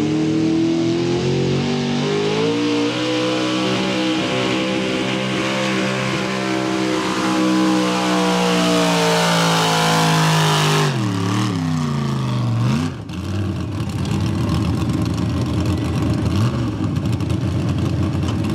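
Lifted square-body Chevrolet pickup's gasoline engine at full throttle pulling a sled. Its pitch climbs over the first few seconds and holds high, then about eleven seconds in the throttle is let off and the engine falls away. It settles into a rough, choppy idle.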